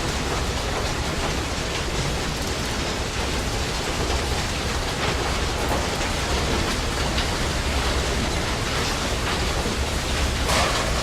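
Auto repair shop ambience: a steady, dense hiss over a low machinery hum, with faint short knocks now and then and a brighter metallic-sounding clatter near the end.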